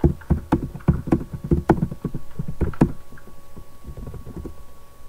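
Computer keyboard typing: a fast, uneven run of key clicks and thumps, slowing and fading out near the end.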